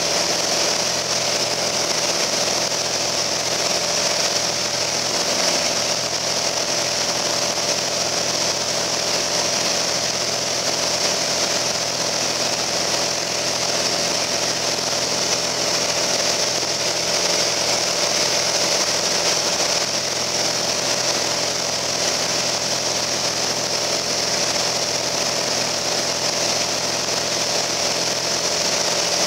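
Piper Cherokee Arrow's piston engine and propeller running steadily in flight, heard from inside the cabin with a constant hiss of airflow over it.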